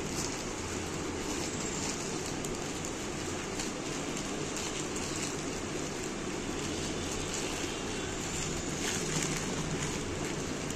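Plastic packaging rustling and crinkling as a courier polybag and the clear plastic bag inside it are pulled open by hand.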